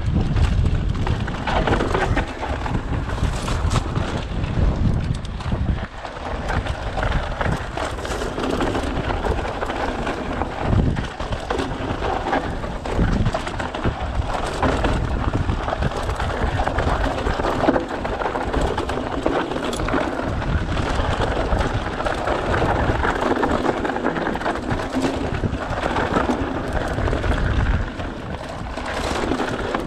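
Mountain bike descending a rocky dirt singletrack: wind buffeting the camera microphone as a steady rumble, with tyres crunching over dirt and stones and the bike rattling in many small clicks.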